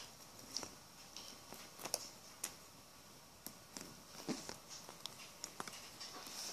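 Faint, scattered clicks and light taps of plastic Lego bricks being handled, about a dozen at irregular intervals.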